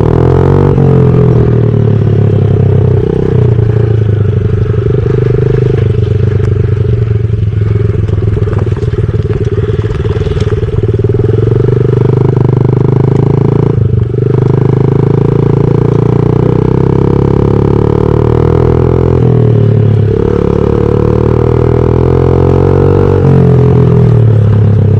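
Honda CRF50 mini dirt bike's small single-cylinder four-stroke engine running loud through a Big Gun aftermarket exhaust, its note climbing and falling several times as it is revved, with a brief drop about halfway through.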